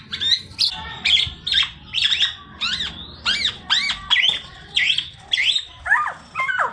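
Black-naped oriole (kepodang) singing hard: a quick run of short, sharply rising whistled notes, two or three a second, some in quick pairs.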